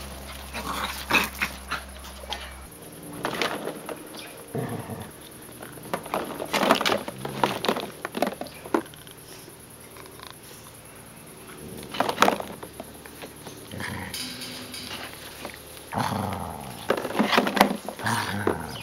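Puppies play-fighting in a plastic ball pit, with short irregular bursts of play growling and the rattle of plastic balls as they tussle.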